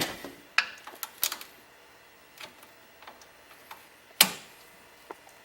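Scattered sharp metallic clicks and knocks of pliers working a transmission line off an automatic transmission. A few come close together near the start, and the loudest single knock comes about four seconds in.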